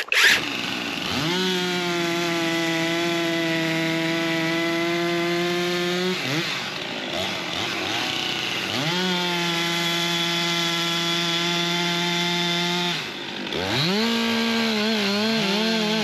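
Stihl gas chainsaws (a 462 and a 400 C) cutting through oak logs. The engine revs up to full throttle and holds a steady high pitch through the cut, drops off briefly twice and then revs back up. Near the end a second saw runs at a different pitch.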